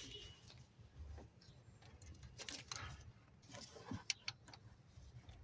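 Faint, scattered clicks and metallic clinks of hand tools on bolts and metal parts, with a couple of sharper clinks about four seconds in.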